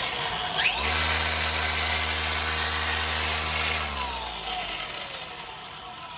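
Dewalt 20V XR brushless cordless string trimmer switched on at its low speed setting: the motor whines up to speed about half a second in, runs steadily for about three seconds, then is released and spins down, fading away.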